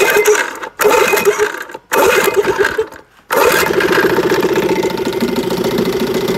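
West Bend-built Elgin 7.5 hp two-stroke outboard motor being started: it fires in three short sputtering bursts that die away, then catches a little over three seconds in and keeps running steadily.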